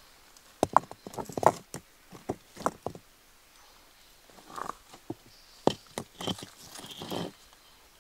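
Irregular sharp knocks and clacks of wood on wood, in two bursts, the second starting a little past halfway.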